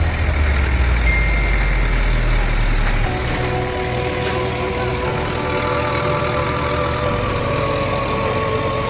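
Tractor diesel engine running steadily as it hauls a heavily loaded trolley, its deep rumble easing about three seconds in.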